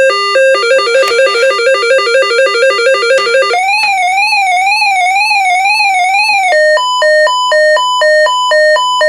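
RadioShack PRO-405 scanner sounding its built-in weather alert test tones through its speaker, stepping through the alert, watch and advisory tones in turn. An alternating two-pitch beep speeds up about half a second in, gives way a little past three seconds in to a warbling tone that rises and falls about twice a second, and about three seconds later changes to a slower beep alternating between two higher pitches.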